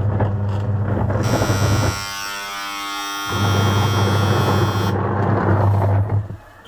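Whirlpool semi-automatic washing machine's motor running with a loud electric hum and a rough rattling noise, the machine noise problem at issue. The hum stops for about a second around two seconds in, then starts again.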